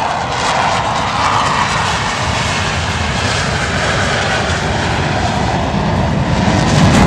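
Blue Angels F/A-18 Hornet jet engines, a loud continuous jet noise of a low pass overhead. The noise carries a higher, hissing roar early on, then a deepening low rumble that grows louder toward the end as the jet goes by.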